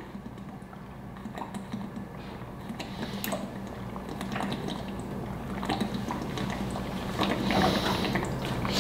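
A man chugging water from a plastic gallon jug: a long run of gulps with water sloshing in the jug and small irregular clicks, growing louder toward the end.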